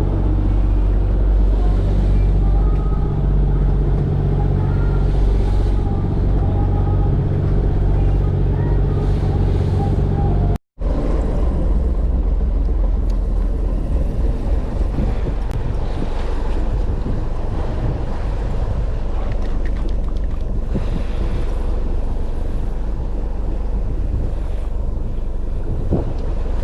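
Fishing boat's engine running steadily underway, with wind on the microphone and water noise from the hull. The sound breaks off for a moment about ten seconds in, then carries on with more wind and water.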